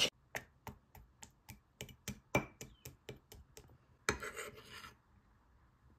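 A spoon tapping sharply and evenly, about three to four taps a second, on the hard caramelised sugar crust of a crème brûlée, then a short rough scrape as the crust breaks.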